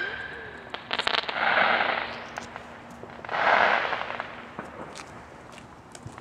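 Consumer fireworks going off: a quick cluster of sharp cracks about a second in, then two hissing bursts about two seconds apart, each lasting about half a second.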